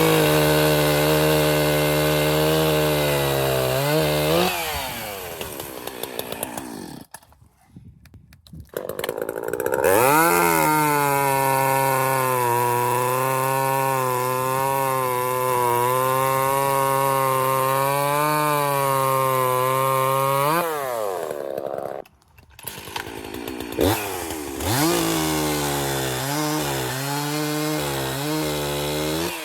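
Two-stroke chainsaw running at full throttle cutting wood, its pitch wavering as it loads up in the cut. It drops back twice, with a short near-silent gap each time, and is revved up and down in quick blips near the end.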